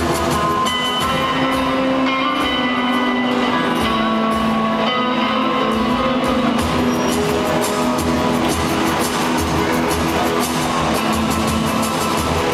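Figure-skating free-skate program music playing over the rink's loudspeakers, with held melody notes over a steady low beat.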